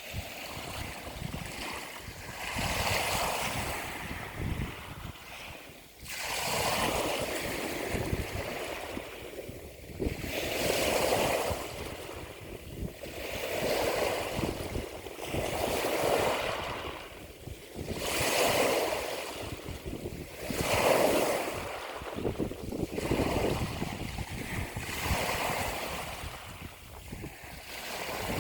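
Ocean surf: waves washing in and drawing back in repeating swells about every two to three seconds, with wind rumbling on the microphone.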